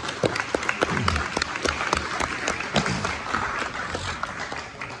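A crowd applauding, with dense, fast clapping and a few voices calling out among it. It dies away near the end.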